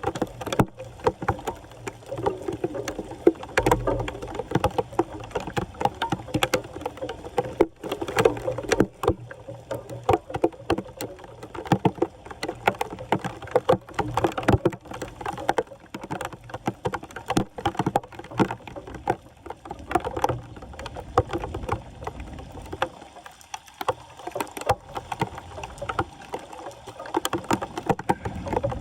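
Shallow floodwater splashing and sloshing as debris is worked at a clogged street drain, with many irregular knocks and scrapes mixed in.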